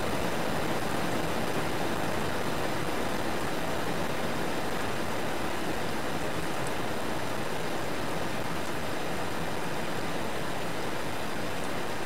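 Steady rain falling: an even, unbroken wash of noise with no breaks or changes in level.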